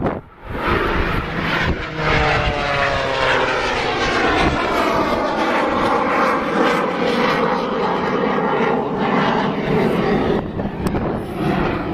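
Airplane flying past, its engine note falling in pitch as it goes by, then settling into a steady drone.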